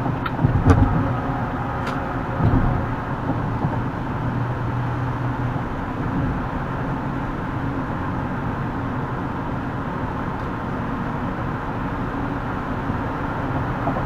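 Steady road and tyre noise of a car driving on a highway, heard from a dashcam inside the cabin, with a few sharp clicks and two louder thumps in the first three seconds.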